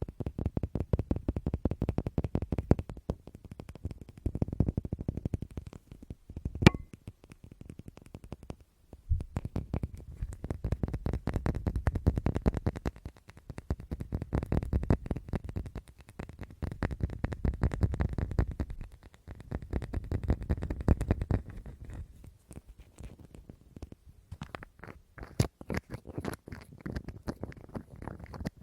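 Rapid, close-miked fingertip tapping on an object, in long fast runs with short pauses, and one sharp click about a third of the way in.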